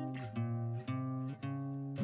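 Background music: an acoustic guitar strummed in an even rhythm.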